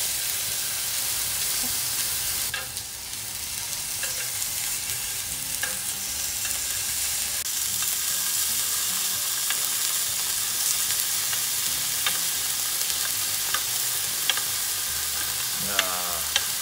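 Lamb chops sizzling on a hot electric grill plate: a steady frying hiss, with scattered sharp clicks as metal tongs touch the plate and chops, and a brief wavering squeak near the end.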